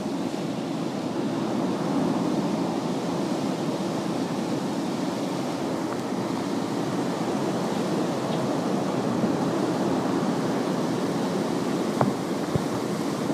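Strong storm wind blowing steadily as a dense, even rush, a little louder from about two seconds in. Two sharp knocks sound near the end.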